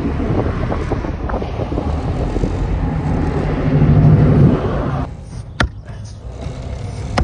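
A steady low rumble with rushing noise, swelling about four seconds in and breaking off about five seconds in. Then a single sharp knock of the Fiskars X27 splitting axe head against the oak round on the chopping block.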